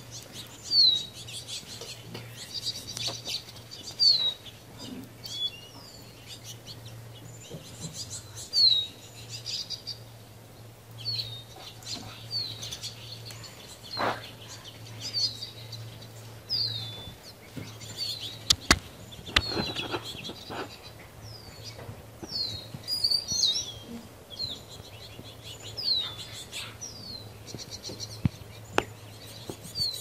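Small birds at a feeder area calling, with short, high chirps that slide downward, repeated every second or two. A few sharp clicks come in around the middle.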